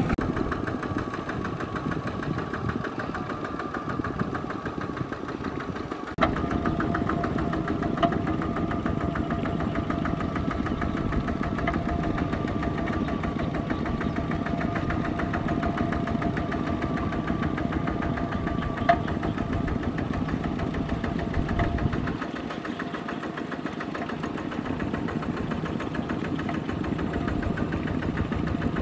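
Two-wheel walking tractor's single-cylinder diesel engine running steadily with a diesel clatter as it pulls a net along. It gets louder about six seconds in and drops back somewhat about twenty-two seconds in.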